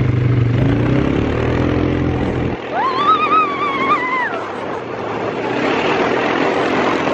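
Quad bike engine running under a rushing wind noise on the microphone. About two and a half seconds in, the low engine note drops away and a woman's high-pitched whoop rises and wavers for over a second.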